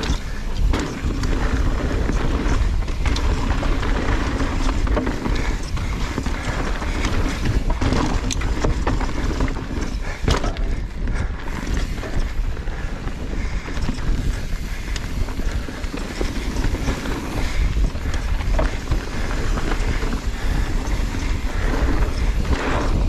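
Mountain bike rolling fast down a dirt trail: knobby tyres crunching over dirt and roots, the bike's chain and suspension rattling with many small clicks and knocks. Heavy wind rumble on the camera microphone.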